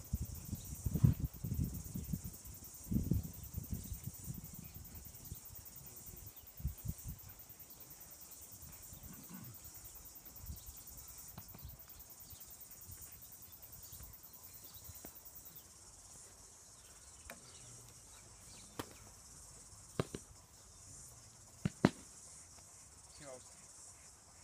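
Insects chirping, a steady high shrill hum. Low thumps and rumbles in the first few seconds, and a few sharp knocks near the end.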